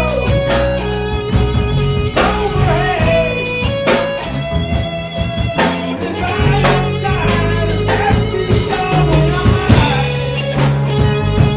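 Live rock band playing an instrumental passage: electric guitar with bending, sustained notes over bass and drums.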